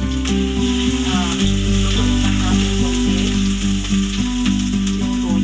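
Ginger sizzling in hot oil in a wok as it is stirred with a spatula, a steady frying hiss with light scrapes, over background music.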